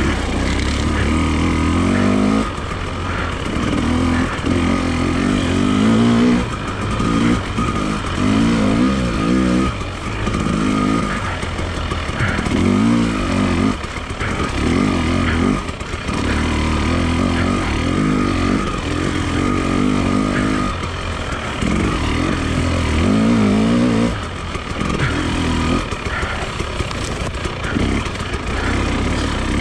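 Enduro motorcycle engine being ridden hard, revving up and easing off again and again, its pitch rising and falling every second or two.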